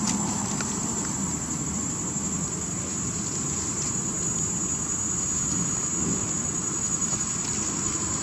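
Steady outdoor background noise: a low rumble and hiss like distant motor traffic, with a constant thin high-pitched whine over it.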